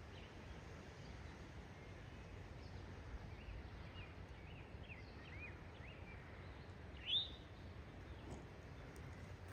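Songbird calling: a run of short chirps, then one louder rising call about seven seconds in, over a steady low background noise.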